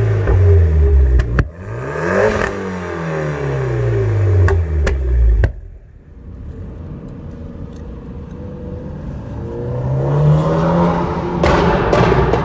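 Tuned Mitsubishi Lancer Evolution X's turbocharged 2.0-litre four-cylinder being revved and let fall back several times, with sharp pops from the exhaust as the revs drop. Near the end the revs climb again and break into a rapid run of crackles and bangs.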